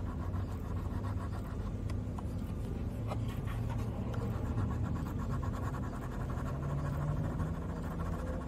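Rubber eraser rubbing quickly back and forth over sketchbook paper, erasing a pencil drawing.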